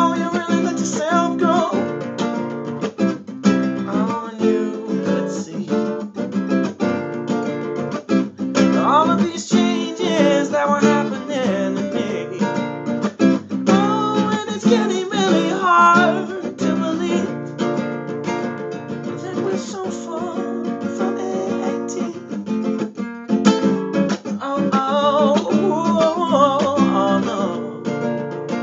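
Classical acoustic guitar strummed steadily, with a man's wordless vocals over it at times.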